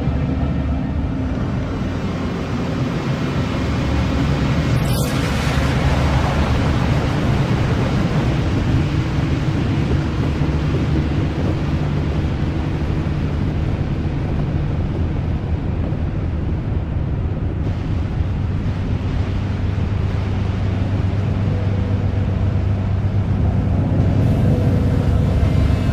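Dark ambient intro track of a metal EP: a loud, steady low drone and rumble with sustained held tones. A brief sweep cuts across the high end about five seconds in.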